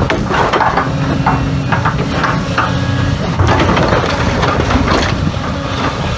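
Demolition machinery: a heavy diesel engine running steadily under irregular cracking and crunching of wood and rubble being broken up.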